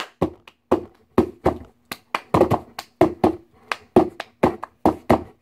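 One person clapping hands quickly and unevenly, about four claps a second, some in quick pairs.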